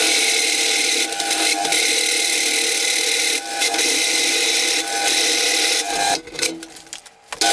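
Drill press boring a hole into the steel railroad-track anvil, the bit cutting steadily with a whine from the machine over a hiss of cutting. About six seconds in the sound breaks up and drops for a second or so, then picks up again just before the end.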